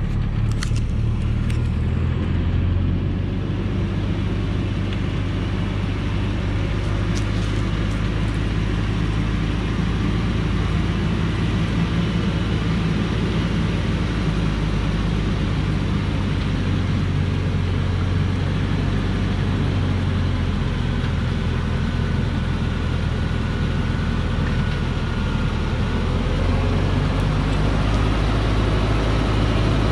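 Dongfeng truck's diesel engine running steadily at low revs as the truck creeps down a steep rocky track, growing a little louder near the end as it nears.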